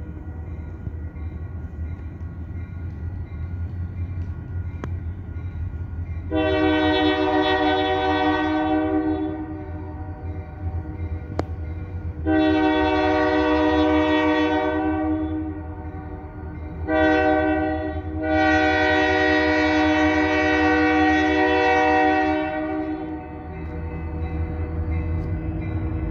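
Locomotive air horn sounding the grade-crossing signal, long, long, short, long, as the train approaches, over the steady low rumble of the oncoming locomotive.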